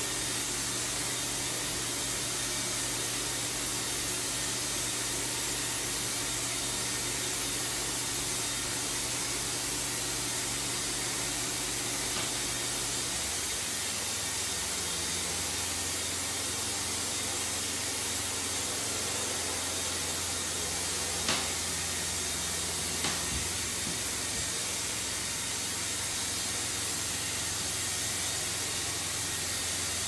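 Steady hiss of air and paint from a Graco ProXp60 electrostatic air spray gun spraying enamel, over a low hum that drops in pitch about halfway through. Two faint clicks near the end.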